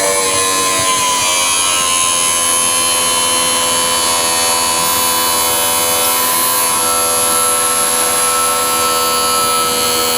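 Electric end mill sharpening machine running with a steady whine while its grinding wheel grinds an end mill's flutes.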